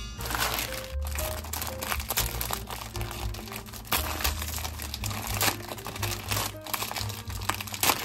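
Plastic Maggi instant-noodle packets crinkling and crackling as they are torn open by hand, over background music.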